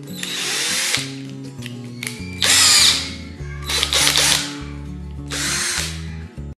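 Cordless drill-driver run unloaded in four short bursts, its motor whining as it speeds up and slows down each time, over background music.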